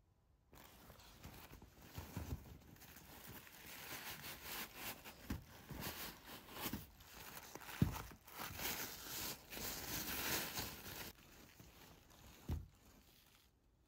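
Rustling of a nonwoven fabric dust bag as a pair of leather fisherman sandals is slid out of it, with soft knocks of the sandals being handled. The rustling stops about 11 seconds in, and a single soft thump follows as the sandals are set down on carpet.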